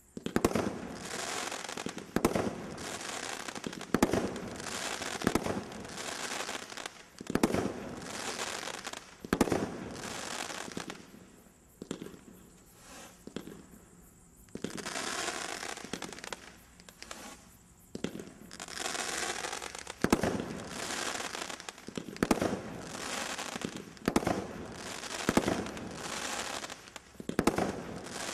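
Brothers 'Light Brigade' 500-gram firework cake firing shot after shot: a sharp bang about every second, with crackling between the shots and a couple of brief quieter lulls near the middle.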